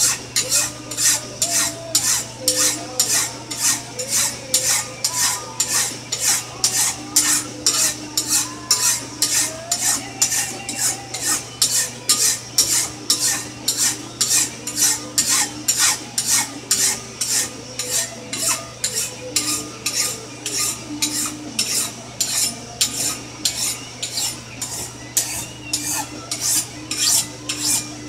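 Hand file rasping back and forth along a knife blade clamped in a vise, about two strokes a second. It is taking the bulk of the metal off toward an edge before the blade is hardened, when it would be much harder to sharpen.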